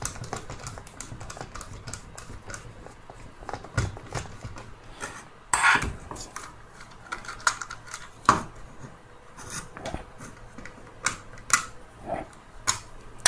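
Irregular light clicks and clatter of a screwdriver and small screws against the Dyson V10's plastic motor housing as two screws are taken out and the tool is handled. A few sharper clacks stand out, the loudest about halfway through.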